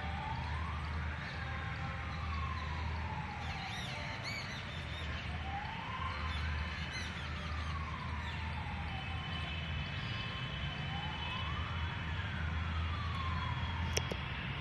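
Emergency vehicle siren wailing, slowly rising and falling three times, over a steady low rumble. A sharp click near the end.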